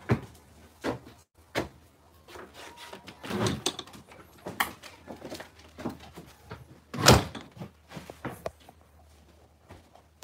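Irregular knocks, thumps and rubbing from a phone being carried pressed against a shirt, with the loudest thump about seven seconds in.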